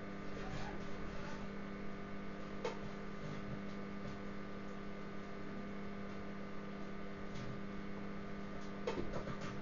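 Microwave oven running with a steady electrical hum, and a few sharp crackles from the computer circuit boards burning and arcing inside, the loudest near the end.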